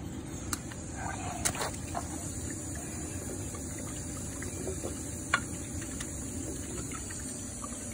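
Water trickling and splashing steadily as a dish is rinsed out, with a few light knocks.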